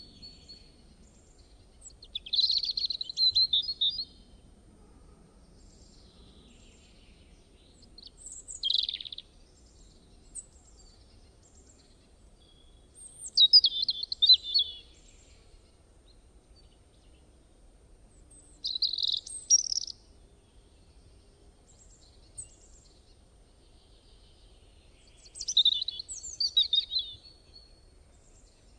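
A bird singing in short bursts of rapid, high chirps, five phrases about five to six seconds apart, each lasting a second or two.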